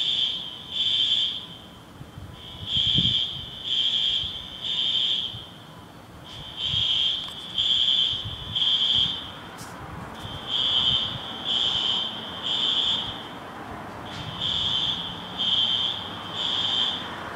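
System Sensor SpectrAlert Advance fire alarm horns sounding the temporal-3 evacuation pattern. It is a loud, high-pitched horn tone in groups of three short blasts, each group followed by a longer pause, repeating about every four seconds.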